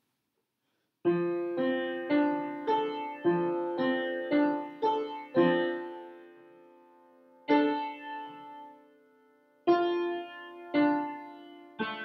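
Piano playing a slow beginner piece, single notes struck one after another about twice a second and left to ring, built on fifths in both hands. It starts about a second in and has a short pause about two-thirds through.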